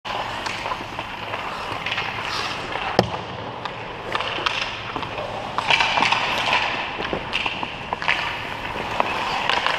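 Hockey skates scraping and gliding on rink ice, with the light clicks of a stick handling a puck and one sharp knock about three seconds in.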